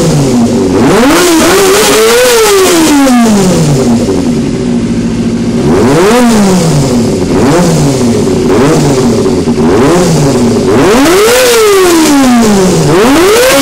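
Suzuki GSX-R250 inline-four engine revved while stationary: the throttle is blipped again and again, the pitch rising and falling each time. After a long rev it settles briefly at a steady fast idle, then comes a quick run of short blips and two longer revs near the end.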